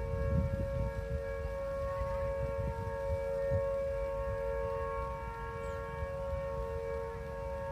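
Sugar mill's siren sounding one long, steady wail of two close pitches, held without rising or falling.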